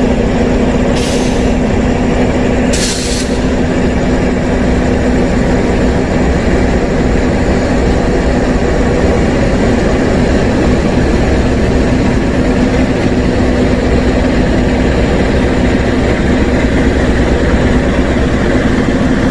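KAI diesel-electric locomotive running with a steady heavy engine drone as it pulls its train slowly through the station past the camera. Two short hisses about one and three seconds in.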